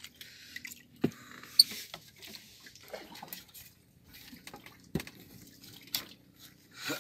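Water dripping and splashing as a wet fishing line with hooks is hauled up out of a river by hand. A few sharp clicks cut through, the loudest about a second and a half in.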